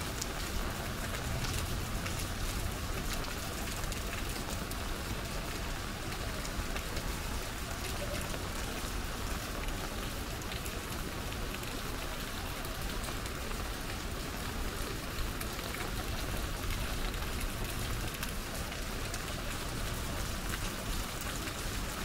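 Steady rain falling on an umbrella held overhead: an even hiss of many small drop ticks, with a low rumble underneath.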